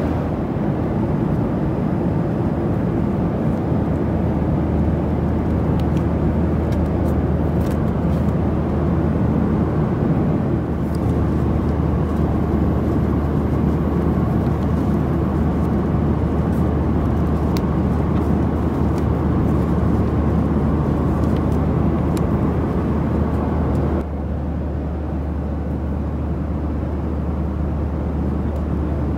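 Steady cabin noise of a Boeing 737-700 in flight: a constant rush of air and engine with a low hum underneath, and a few faint clicks. Near the end the rush turns slightly quieter and duller.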